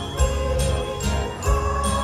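Christmas music with jingle bells shaken on a steady beat, about twice a second, over a deep bass line.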